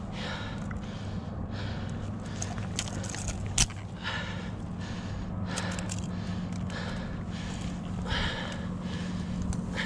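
Rustling of dry grass and clothing while long-nosed pliers work a wobbler's hooks out of a zander's mouth, with one sharp click about three and a half seconds in, over a steady low hum.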